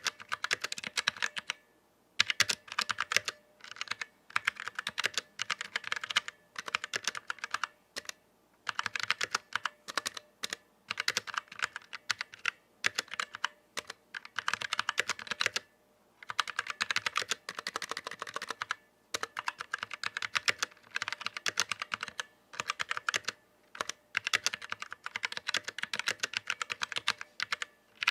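Typing on a Vortex Series VX7 mechanical keyboard with stock Outemu Brown tactile switches: quick runs of key clacks broken by short pauses.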